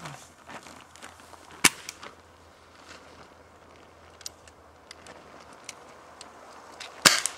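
Air rifles firing: two sharp shots, one about one and a half seconds in and a louder one near the end, with a few faint ticks between.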